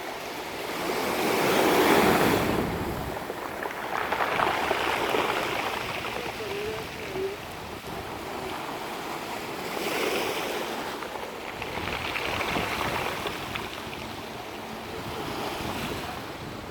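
Sea waves washing up a pebble beach and drawing back, the shingle rattling and hissing as the water moves it. The surf swells and fades in repeated surges, the loudest about two seconds in.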